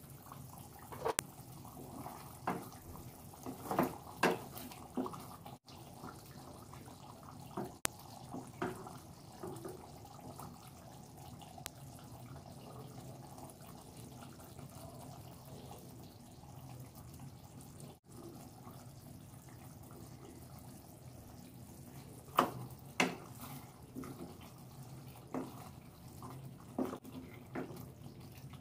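Thick creamy chicken karahi gravy simmering and bubbling in a wok, with short clusters of knocks near the start and a spatula tapping and scraping against the pan in the last several seconds.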